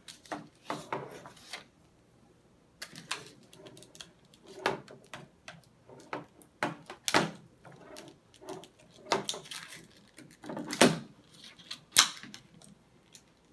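Hands handling a plastic toy broom and its packaging: irregular clicks, knocks and rustles of plastic, the sharpest click near the end.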